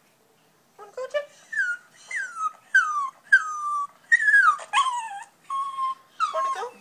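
Dog whining: a series of about nine high whines, each sliding down in pitch, starting about a second in.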